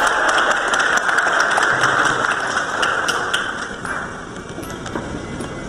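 Crowd applauding, a dense run of clapping that eases off about four seconds in.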